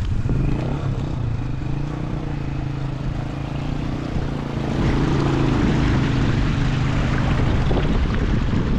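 A motor engine running steadily with an even drone, its pitch wavering only slightly. A rushing hiss rises under it about halfway through.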